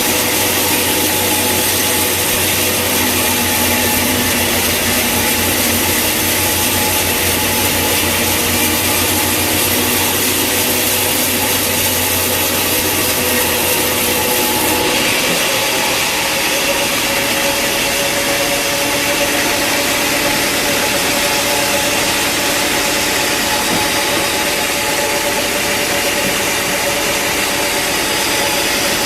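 Sawmill machinery running steadily, a mix of engine hum and sawing through wood. About halfway through, the sound switches abruptly to a different steady machine hum.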